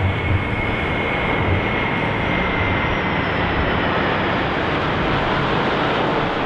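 Formation of two EA-18G Growler jets and an FG-1D Corsair flying overhead: a steady engine roar, with a faint whine that slowly drops in pitch as the aircraft pass.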